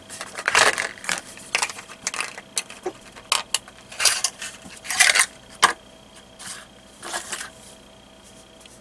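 A new copper spark plug and its cardboard box being handled on a workbench: the box rustling as it is opened, with light metallic clicks and clinks as the plug is taken out and handled. The noises come as a string of short, sharp bursts and die away near the end.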